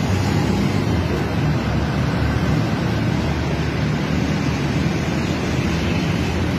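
Steady wind rumble on the microphone, mixed with low street-traffic noise.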